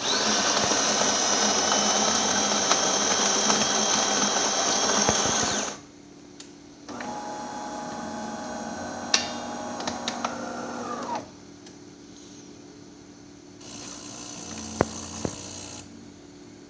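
DeLonghi Magnifica XS super-automatic espresso machine starting a shot: its built-in coffee grinder runs loudly for about six seconds and stops. A quieter motor whir follows for about four seconds, and later a shorter, fainter hum with a couple of clicks.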